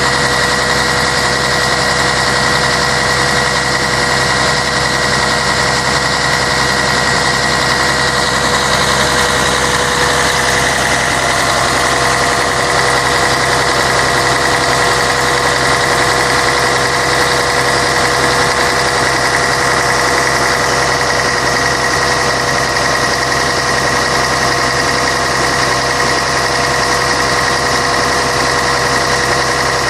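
Scania K113 bus's 11-litre six-cylinder diesel engine running at a steady, even speed.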